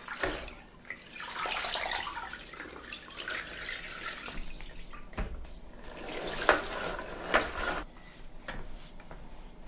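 Water sloshing and spattering as an O-Cedar EasyWring spin mop head is worked in its bucket and spun in the foot-pedal wringer, wringing out the excess water. The sound comes in two noisy stretches, the second louder, with a few sharp knocks in it.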